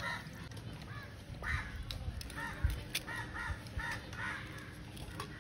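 Crows cawing repeatedly in short, clipped calls, with a few sharp clicks in between.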